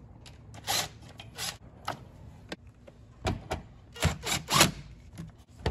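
Plastic clicks and knocks as PCV hoses and connectors are pulled off a Chevy 5.3 L V8's intake, then a cordless power tool run briefly a few times, loosening the hose clamp on the intake tube.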